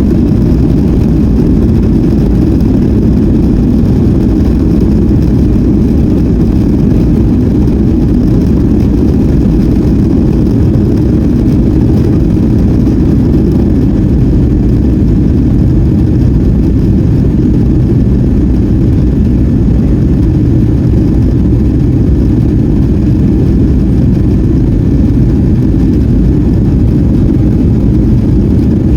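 Steady, loud, deep rumble of a Boeing 757-200's engines and airflow as heard inside the passenger cabin during departure, with no change in pitch or level.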